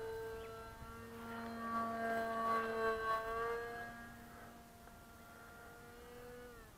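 Electric RC plane's motor and propeller whining in flight, a steady pitched drone that grows louder about two to three seconds in. Near the end the pitch drops as the throttle comes back.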